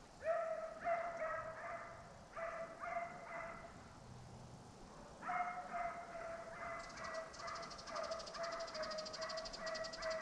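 A pack of deer-hunting hounds baying in the woods on a deer drive, giving runs of quick barks. They break off for a couple of seconds around the middle, then start again and keep on.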